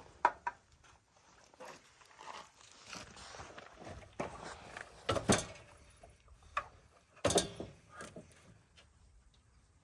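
A series of scattered knocks and clicks, with sharp, loud knocks near the start and at about five and about seven seconds, and no engine running.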